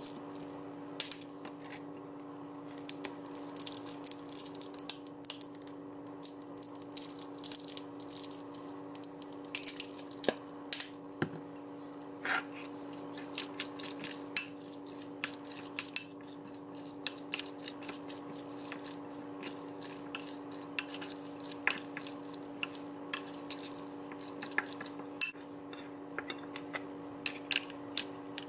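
Kitchen utensils clinking, tapping and scraping against a glass mixing bowl and a metal rice cooker pot during food prep, in many short, irregular clicks over a steady hum.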